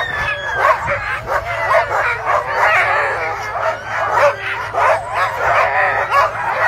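A harnessed sled dog team barking, yipping and whining together in a continuous chorus, many dogs at once: the excited clamour of a team eager to run while held at the start line.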